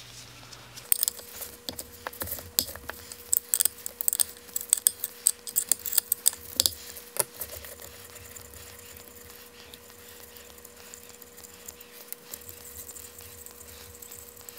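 Hand tool working the cylinder bolts on a motorcycle engine: a quick run of sharp metallic clicks and clinks for the first several seconds as the bolts are loosened, then only a faint steady hum.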